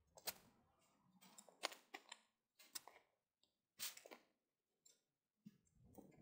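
Faint digging in soil: short, separate crunches and scrapes of a digging tool, a second or so apart.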